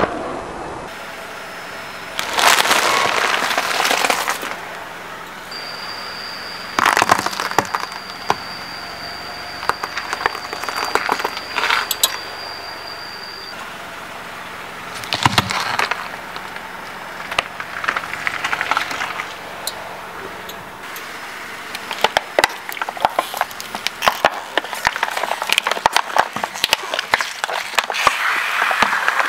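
A car tyre rolling slowly over food and plastic objects on concrete and crushing them, heard as several separate bursts of crunching and crackling, then dense crackling through the last several seconds. A thin steady high tone runs through the middle.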